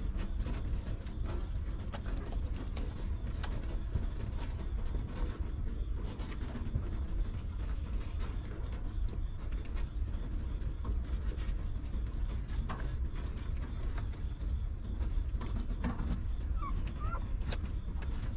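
Newborn puppies suckling at their mother, with scattered small wet smacking clicks and a couple of short high squeaks late on, over a steady low rumble.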